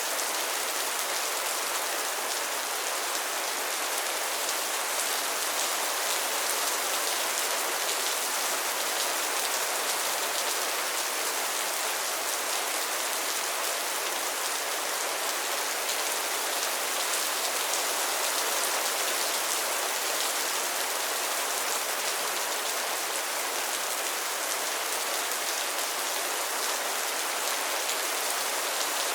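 Steady rain falling on a pond and its lily pads: a dense, even patter of drops.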